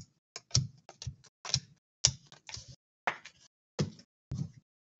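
Stiff chrome Panini Prizm trading cards being handled and flipped through by hand: a dozen or so irregular sharp clicks and snaps as cards are slid off the stack and set down.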